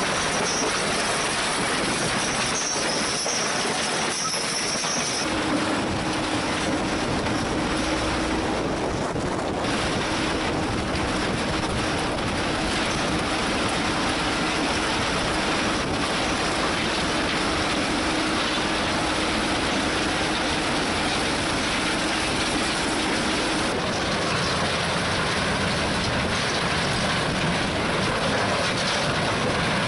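Gipokombi RC 130 mobile tracked crusher running and crushing broken concrete: a steady, loud noise of machinery and rubble.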